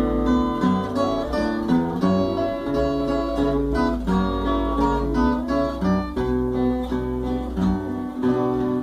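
Instrumental intro of a Brazilian country (sertanejo) song: acoustic guitars picking and strumming a melody over a steady bass line, with no singing.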